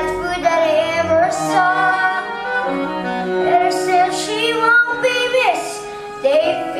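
A musical-theatre song: voices singing a melody over instrumental accompaniment with sustained string-like notes.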